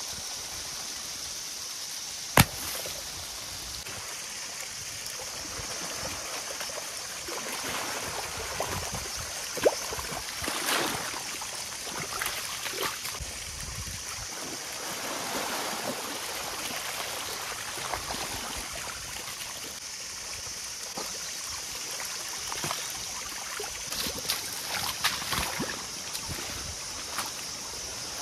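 Muddy water sloshing and squelching as a flooded paddy field is worked by hand and with a flat board. Under it runs a steady high hiss, and there is a single sharp click about two seconds in.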